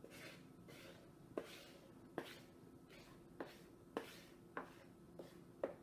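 Faint, irregular taps and clicks, about seven of them, with soft scraping swishes in between: kitchen utensils working against a mixing bowl as milk and dry ingredients go into cake batter.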